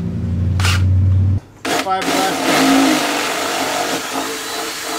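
Cordless drill whirring with a steady low hum that cuts off about a second and a half in. Then, from about two seconds in, the drill bores through a fiberglass patch on a steel mower deck with a loud, hissy grinding.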